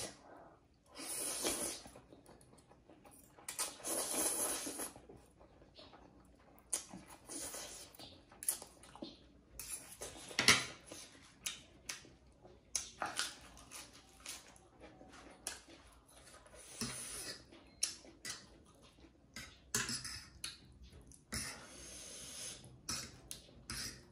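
A person eating instant ramen noodles: a series of slurps and mouth noises, some lasting about a second, mixed with short sharp clicks of metal forks against the plate.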